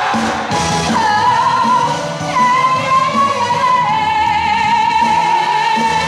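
A singer performing a song live over backing music with a steady beat, holding long notes with vibrato; one long held note starts about four seconds in.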